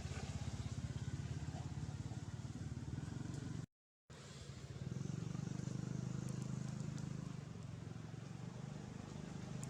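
A small engine running steadily with a low, rapidly pulsing hum, cut by a brief total dropout nearly four seconds in.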